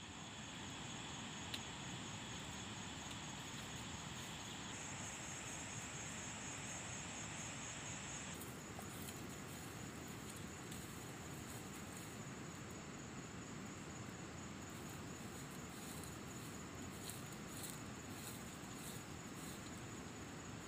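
Insects trilling steadily. From about eight seconds in, a grass broom sweeps bare dirt in repeated short strokes.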